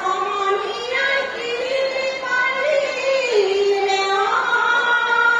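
A woman singing a slow melody with long held notes that waver slightly and slide from one pitch to the next.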